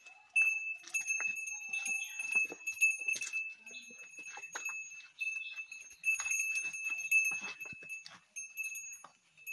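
A small cattle bell hung on a calf's neck rings over and over as the calf walks, each clank leaving a steady high ringing tone.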